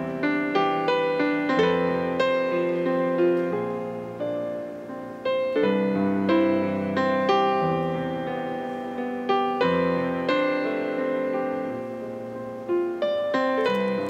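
Gentle piano music, notes and chords struck one after another and left to ring out.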